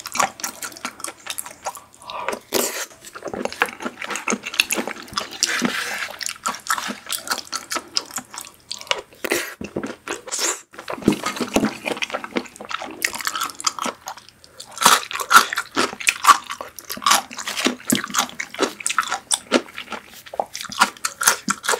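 Close-miked wet eating sounds: slurping and chewing creamy cream-sauce pasta, with many small wet clicks and smacks of the mouth.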